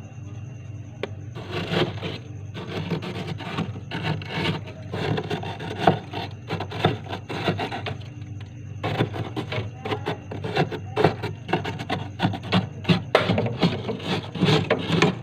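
Ice and frost being scraped out of a freezer in quick rasping strokes, with a short pause about halfway through, over a steady low hum.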